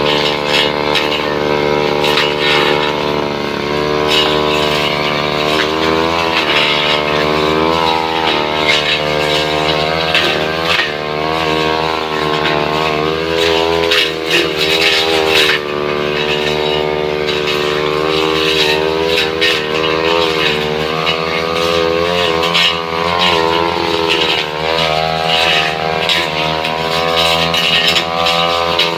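Two-stroke brush cutter engine running hard, its pitch repeatedly dipping and recovering as the blade bogs down cutting into wood, with scattered sharp ticks.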